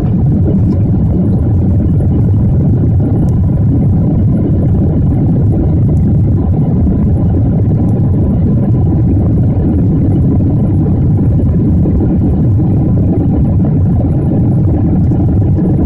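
Steady low roar of cabin noise inside a Boeing 747 in flight, from its engines and the air rushing past the fuselage.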